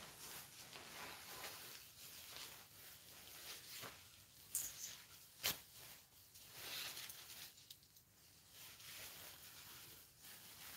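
Faint rustling of a 3D ghillie suit's fabric being handled and unfolded, with a few short sharp clicks near the middle.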